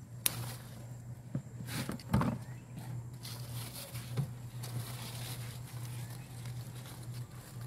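Rustling of garden plants with a handful of sharp snaps and knocks, scattered through the first half, as plants are handled and pulled during harvesting.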